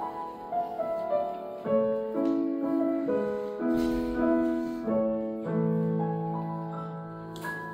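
Steinway grand piano played solo: a slow succession of chords and melody notes over held bass notes, the last chord sustained and dying away over the final few seconds.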